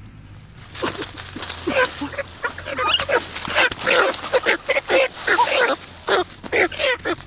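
Poultry squawking and calling in a rapid, uneven string of short, loud calls, starting about a second in.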